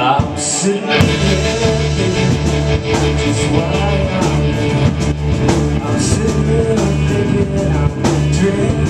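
Live amplified rock band playing: electric guitars, electric bass and drum kit, with the full band coming in strongly about a second in.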